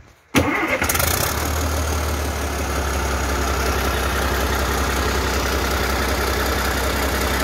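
Caterpillar 3306 direct-injection six-cylinder diesel engine starting after sitting 15 years: it turns over and catches almost at once, a fraction of a second in, then settles into a steady, loud run.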